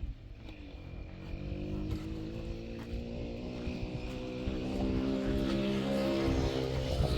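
A motor vehicle's engine pulling up through the revs as it accelerates, its pitch climbing slowly and getting louder. It drops back once, near the end, as if shifting gear, then climbs again.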